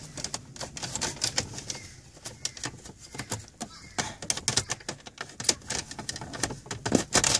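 Plastic cup holder being worked and pushed into a car's centre console: irregular hard plastic clicks, taps and knocks, a few louder ones near the end.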